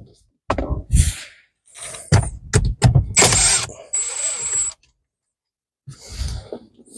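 Hand work on a car's dashboard while its radio mounting screws are taken out: a string of clicks and knocks from the tool and plastic trim, then a scraping, whirring stretch of about a second and a half.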